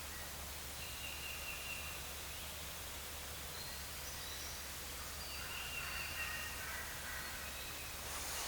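Faint woodland ambience with thin songbird calls, then near the end a wild turkey gobble breaks out, louder than anything before it.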